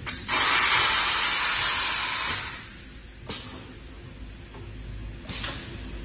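Pneumatic spot welding machine letting out a sudden burst of compressed-air hiss that lasts about two seconds and then fades, followed by two short knocks from the machine a second or two apart.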